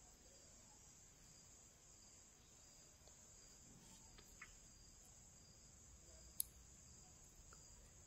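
Near silence: a faint steady high hiss, with a couple of faint clicks in the second half.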